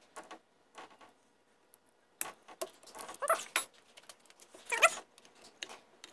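Small metal clicks and taps of needle-nose pliers working the choke linkage of a Johnson 15 HP outboard, with two short wavering whines about three and five seconds in.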